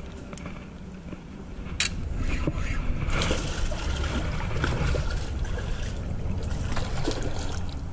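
A hooked sheepshead splashing and thrashing at the water's surface as it is reeled in, getting louder about two seconds in, over a low rumble of wind on the microphone.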